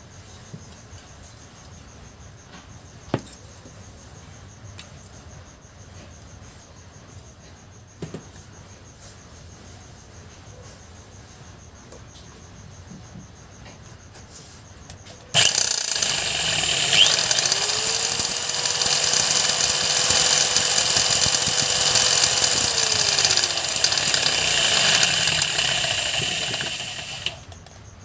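Quiet background with a few faint clicks, then about halfway through an ALPHA electric drill is switched on and runs loud and steady, spinning an old water pump motor used as a generator, with a whine that rises, holds and falls as it slows and stops shortly before the end.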